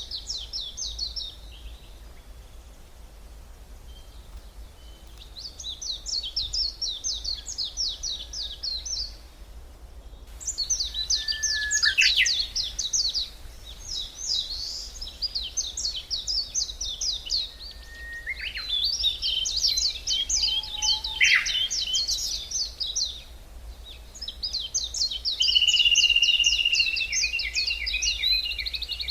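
Woodland songbirds singing, giving repeated phrases of fast, high trills a few seconds long with short pauses between them, and a longer held whistle near the end. Faint low rumble underneath.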